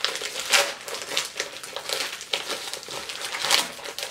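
Crinkling and rustling of a shiny pink plastic Ipsy mailer bag being pulled open and crumpled by hand: an irregular run of sharp crackles.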